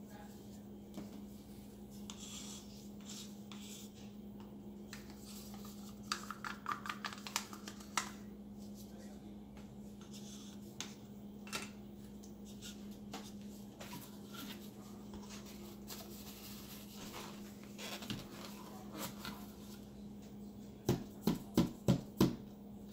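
Light clicks and scrapes of wooden craft sticks and plastic paint cups being handled, over a steady low hum. Near the end come five quick taps as a gloved hand pats the bottom of the upturned plastic cup of paint on the canvas.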